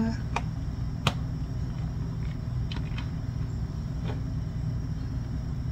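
A few light clicks and taps of a utensil against a plastic container as cooked rice is scooped out, over a steady low room hum.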